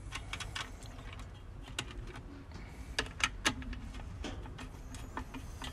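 Light, irregular clicks and taps of hands and a screwdriver working the wire terminals inside a metal fused AC disconnect box, as the conductors are pull-tested and the terminal screws tightened. The sharpest clicks come about three seconds in.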